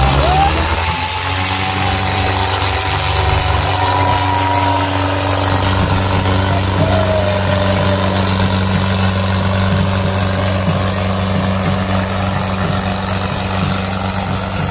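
Diesel engines of two HMT tractors, an HMT 5911 and an HMT 3522, running steadily together while the tractors are hitched back to back and pulling against each other in a tug-of-war.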